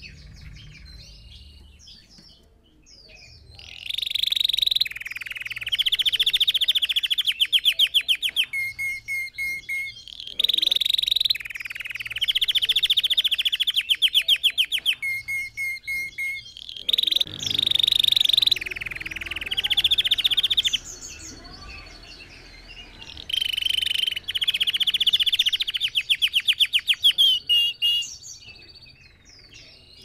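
Red factor canary singing: four long song phrases of fast trills and clear whistled notes, with short pauses and soft chirps between them.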